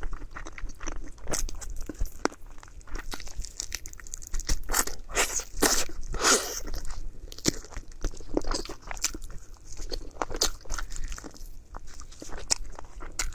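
Close-miked eating: a person biting and chewing crunchy food, with many sharp crunches between softer chewing sounds.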